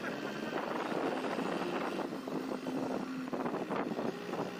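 4x4 jeep driving along a road, heard from inside its open-sided cab: the engine runs steadily under uneven wind and road noise.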